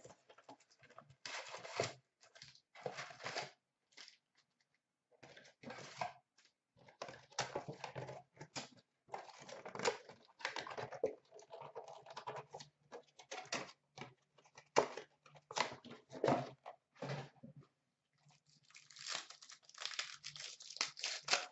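Cardboard hockey card box being torn open and its foil-wrapped card packs handled and ripped, in irregular crinkling, tearing bursts with short pauses between.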